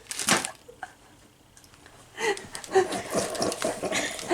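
A short breathy burst, then a brief lull, then indistinct voices and breathy laughter from about two seconds in.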